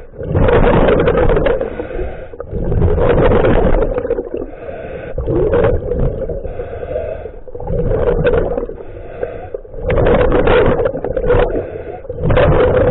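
Scuba diver breathing through a regulator underwater: loud rushes of exhaled bubbles every two to three seconds, with a quieter hiss between them.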